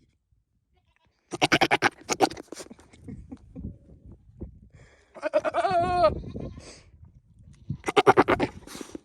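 Nigerian Dwarf buck courting does in heat: two bursts of rapid, stuttering pulsed calls with a single wavering bleat between them.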